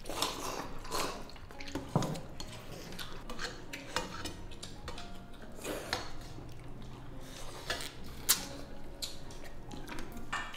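Chopsticks and spoons clinking and knocking against ceramic rice bowls and steel serving bowls during a meal, a run of scattered small clicks with one sharper knock about eight seconds in.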